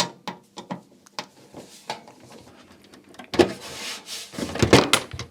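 Workbench handling noise as screws are taken out of the MiniDisc deck's casing: light scattered clicks and taps, then, about three seconds in, a louder stretch of scraping and rubbing with a few sharp clicks.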